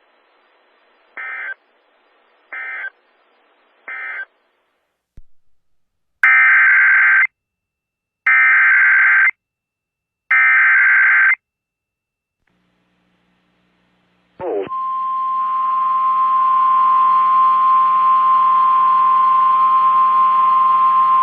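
Emergency Alert System SAME data bursts: three short screeching bursts of the end-of-message code, then after a pause three longer bursts of the next alert's header. Near the end a steady single-pitch alert tone starts and holds, the weather radio warning alarm tone that leads into a new warning.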